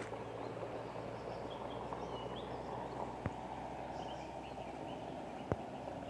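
Faint songbird chirps over a steady low background rumble, with two brief sharp clicks, one about three seconds in and one near the end.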